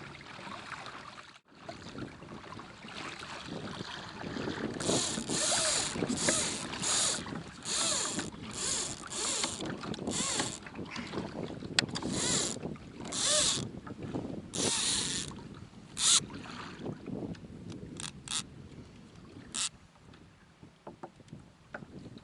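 Water splashing and sloshing around a kayak, with a run of short splashes about once a second for ten seconds, fading out toward the end.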